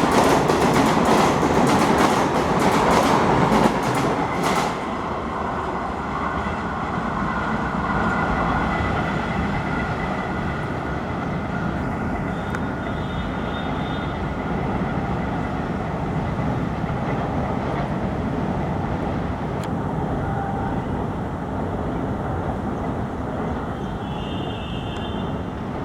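An Indian Railways passenger express train's coaches run past at speed, their wheels clicking rapidly over the rail joints, until the loud clicking stops about four and a half seconds in. A steady rumble from the train carries on after that and slowly gets quieter.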